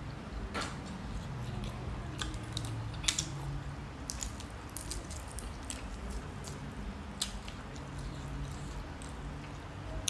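A person chewing and biting food close to the microphone, with scattered sharp wet mouth clicks and smacks over a steady low hum.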